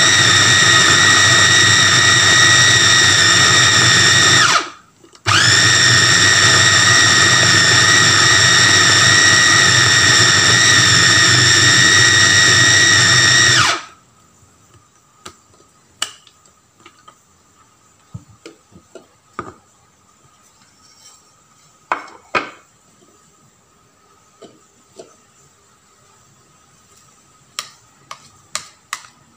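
Electric mini food chopper's motor running with a high whine as it minces raw chicken. About five seconds in it briefly winds down and back up, and about fourteen seconds in it stops. Then come light clicks and knocks as the motor top is lifted off and a spoon scrapes the plastic bowl.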